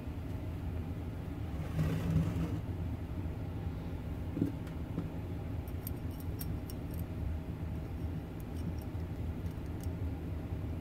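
Steady low background hum. About halfway through, faint light clicks and scrapes as a thin wire is twisted around a steel wrench.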